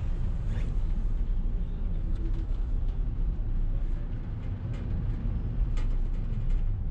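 Steady low rumble of a moving vehicle, with scattered light clicks and rattles.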